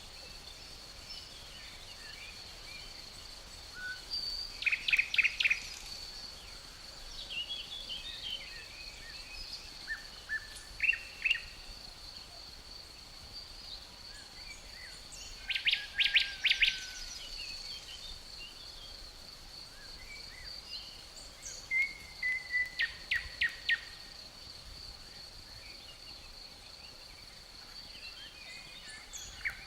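Forest birdsong: short phrases of quick repeated notes, one about every five or six seconds, over a steady high-pitched trill of crickets.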